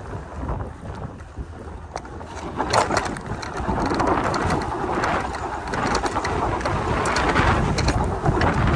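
Riding noise from an electric bike moving over a dirt trail: wind buffeting the microphone over a low rumble of tyres on dirt, with scattered knocks and clatter from bumps. It gets louder from about three seconds in.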